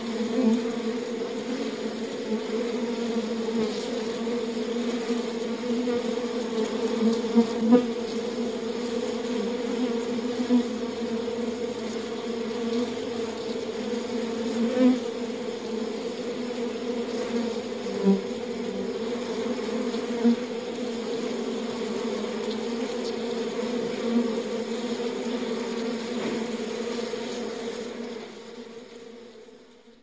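Honeybees in a hive: a dense, steady buzz of many bees, with a single bee buzzing louder and close by now and then. It fades out over the last couple of seconds.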